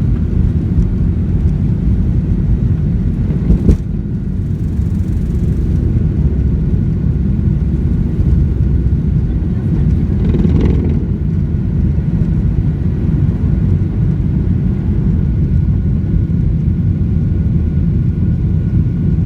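Aeroplane engines running at takeoff: a loud, steady low rumble with a faint steady whine above it, and a single click a few seconds in.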